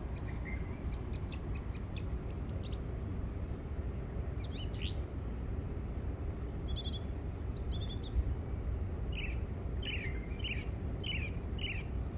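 Songbirds chirping and calling, many short quick notes with a run of repeated down-slurred calls in the second half, over a steady low background rumble.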